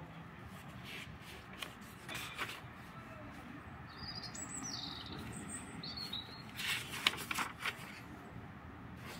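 Pages of a thin-paper notebook being turned twice, the paper rustling and flapping, loudest on the second turn near the end. A bird chirps a few high, falling notes in the background about halfway through.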